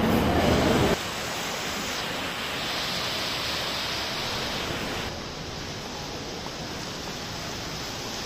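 Water from an indoor fountain's jets splashing, a steady rushing hiss. A louder, deeper din stops about a second in.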